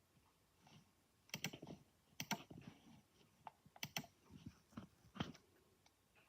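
Desktop PC making intermittent grinding noises: irregular clusters of sharp clicks and short scraping bursts, the loudest about a second and a half in, at two and a quarter seconds, at four seconds and near five seconds.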